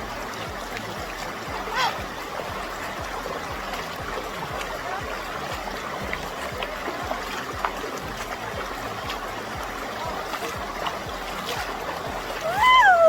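River water rushing steadily from a small waterfall into a natural pool. Near the end a woman lets out a loud squeal that rises and then falls in pitch.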